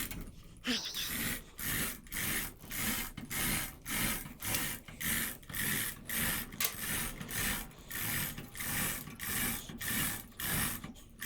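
Ratchet wrench being worked back and forth in steady short strokes, about two a second, each stroke a quick run of clicks.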